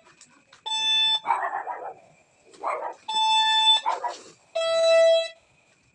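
Nokta Makro Jeotech metal detector sounding beep tones as its search coil sweeps over a target. There are three beeps of under a second each: two higher-pitched ones about a second in and about three seconds in, then a lower-pitched one near five seconds. Short rough noisy bursts come between the beeps.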